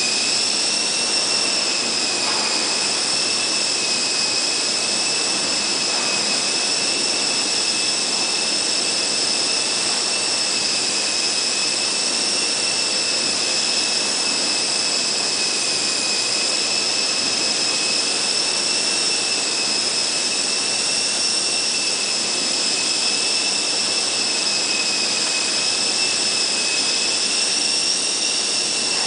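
GWS Mini Dragonfly radio-controlled micro helicopter in flight: its electric motor and rotor make a steady high-pitched whine over a rushing hiss, wavering only slightly in pitch as the throttle changes.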